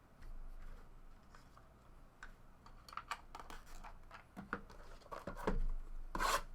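Trading cards and their packaging being handled on a table: a scatter of light clicks and taps, getting busier from about halfway through, with a louder rustle just before the end.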